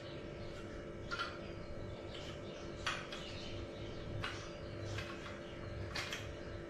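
Faint metal clicks and scrapes, a handful spread out, as a gas canister is fitted and twisted into the locking connector of a compact portable gas stove. A steady low hum runs underneath.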